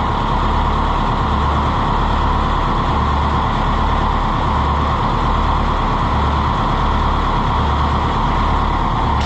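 Old farm tractor engine running steadily, with a slow, even low throb.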